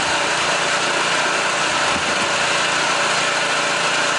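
Small petrol-engine pressure washer running steadily at full power, its engine drone mixed with the hiss of the water jet.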